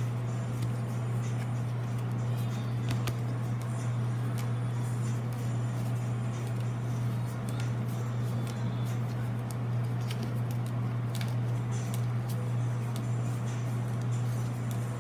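Pokémon trading cards being flipped through and slid past one another by hand: scattered faint clicks and rustles. Under them runs a steady low hum, the loudest sound.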